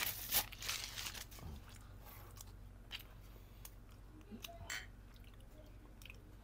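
Quiet close-up eating-table noises: a paper napkin rubbed over the mouth with soft rustling in the first second, light chewing and small clicks, then a short splash of gin poured from the bottle into a shot glass near the end.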